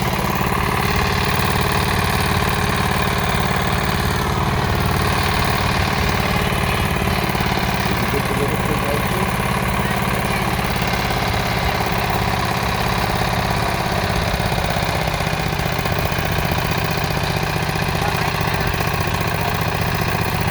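Farm tractor engine idling steadily at a constant speed.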